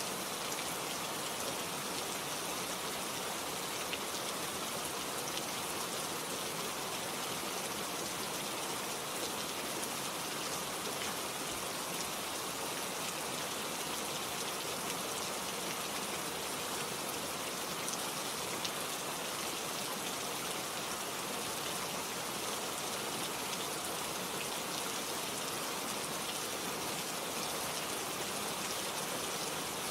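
Steady rain falling, an even hiss dotted with the faint ticks of individual drops.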